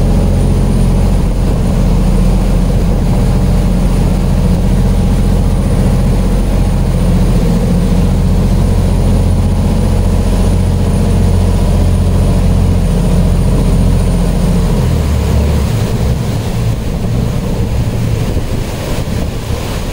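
Canal passenger boat's big inboard diesel engine running loud and steady under way. About fifteen seconds in, its note drops lower and a little quieter as it throttles back.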